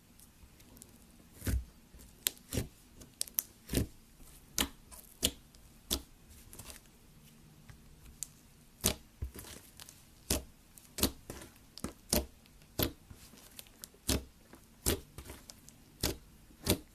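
Slime being handled: a string of sharp, irregular clicks and pops, roughly one or two a second.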